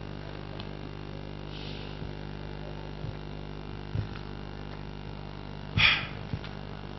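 Steady low electrical mains hum from the microphone and PA system, with a few faint knocks and one short burst of noise a little before the end.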